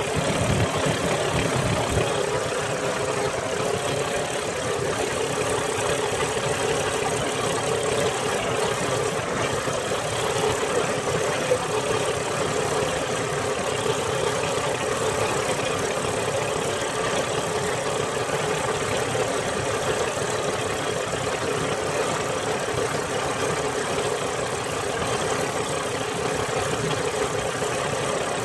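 Motorised outrigger boat's engine running steadily under way, a constant drone with wind and water noise. Low gusts of wind buffet the microphone in the first couple of seconds.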